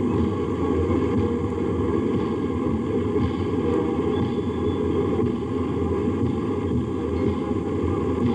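Tanks driving past, a steady low engine noise with no breaks, heard through an old, muffled archival film soundtrack.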